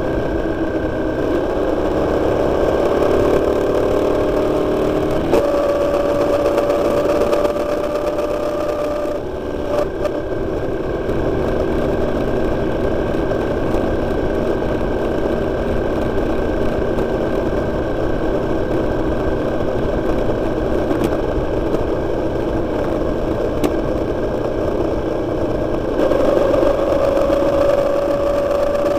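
Motorcycle engine running under way, with wind and road noise. The engine note shifts a few times: a brief let-off about nine seconds in, and a slowly rising note near the end as it speeds up.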